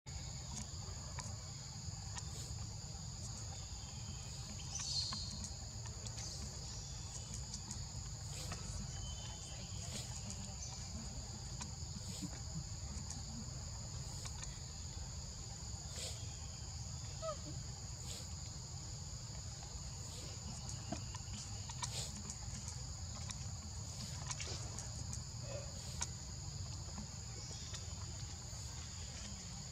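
Steady insect chorus of forest crickets or cicadas: two constant high-pitched tones held without a break, over a low rumble, with scattered faint clicks.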